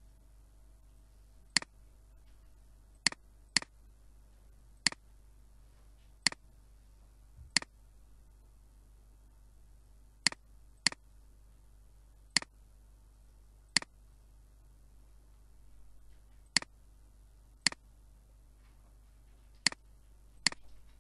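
Computer mouse button clicking: about fourteen sharp single clicks at uneven intervals, a few in quick pairs.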